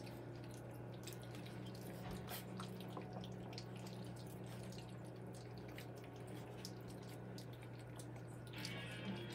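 Several three-week-old puppies lapping and smacking at a wet mush of puppy food and goat's milk, a scattered patter of small wet clicks.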